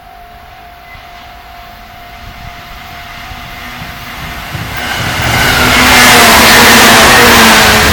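A level crossing alarm sounds faintly under a low rumble, then a JR 117 series electric multiple unit approaches and passes over the crossing. The noise of the train's wheels on the rails swells and becomes loud about five seconds in.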